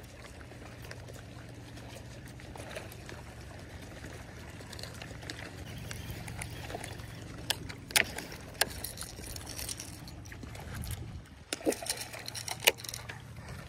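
Water lapping and trickling against a boat's hull, with a few sharp splashes near the end as a hooked fish thrashes at the surface.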